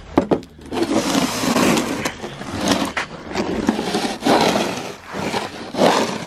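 Snow shovel blade scraping along pavement as it pushes snow, in a series of long strokes, with a couple of sharp knocks of the blade just at the start.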